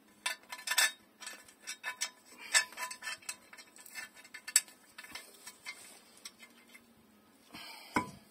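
Metal clinks and knocks from handling a truck's rear differential cover against the axle housing, with many small clicks over the first few seconds and one louder, deeper knock near the end as the cover meets the housing.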